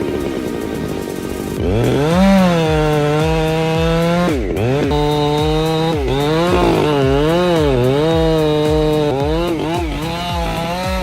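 A chainsaw running, starting about one and a half seconds in, its engine pitch climbing and dipping over and over as it works through wood.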